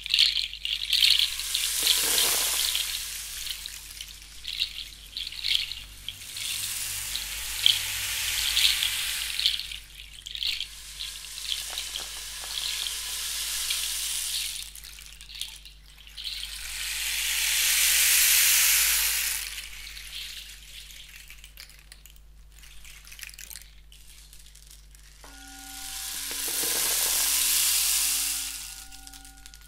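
Gong played in a sound bath: a shimmering, hissing wash of high overtones that swells and fades, rising to two louder swells in the second half. Near the end a steady ringing tone with a slow pulse comes in under the wash.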